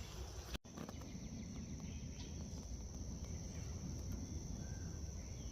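Insects calling in a steady, unbroken high-pitched chorus over a low rumble. The sound briefly cuts out about half a second in.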